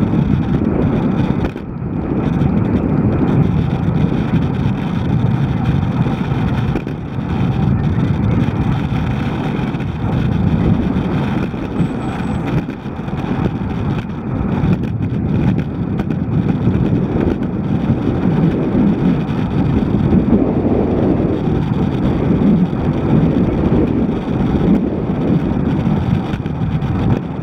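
Wind buffeting a ride camera's microphone while cycling on the road: a loud, steady low rumble that wavers in strength.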